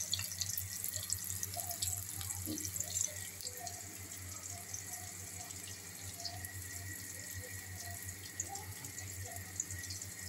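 Shami kababs sizzling and crackling in hot shallow oil in a pan, a steady dense crackle that eases slightly about three seconds in.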